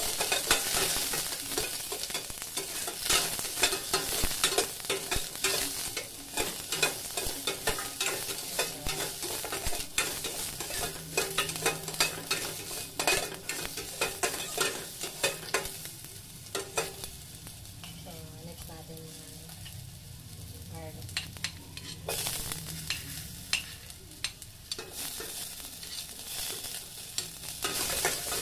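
Sliced onions sizzling in a stainless steel pot while a metal ladle stirs and scrapes them, clinking against the pot. The clinking thins out for a few seconds past the middle and picks up again near the end.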